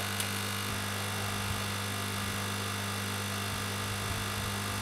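Hot air rework gun blowing on a motherboard chip to reflow its solder: a steady hiss of air with a low hum, and a few faint ticks.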